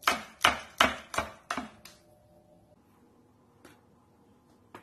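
Kitchen knife chopping green chili peppers on a wooden cutting board: about five crisp strokes, roughly two and a half a second, stopping two seconds in. After that it is quiet apart from two faint taps.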